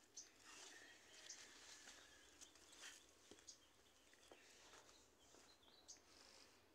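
Near silence: faint rural background with a few faint, short bird chirps and light ticks.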